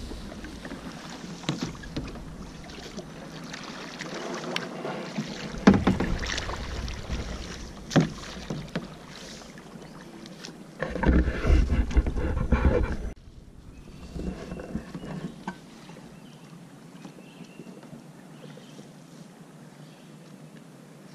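Kayak paddling: paddle blades splashing in the water, with sharp knocks against the plastic hull now and then. There is a louder rumbling stretch about halfway through, and the last third is quieter.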